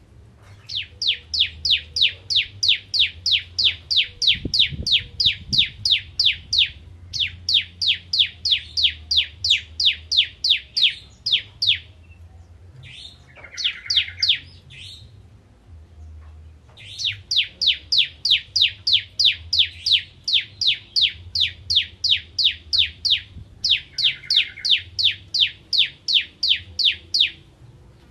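Ciblek (bar-winged prinia) singing long, rapid runs of sharp repeated high notes, about four a second, broken by several short pauses. A lower buzzy call sounds twice in the gaps.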